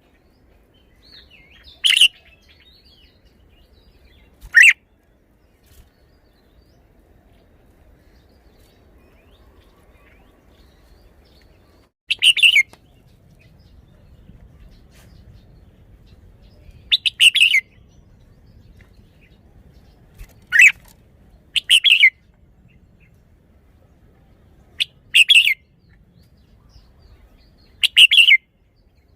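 Red-whiskered bulbul singing short, loud, clear phrases, each about half a second long, with pauses of a few seconds between them; about eight phrases in all.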